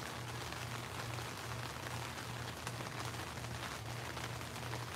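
Steady rain, an even hiss of falling drops, with a low hum underneath that throbs at an even pace.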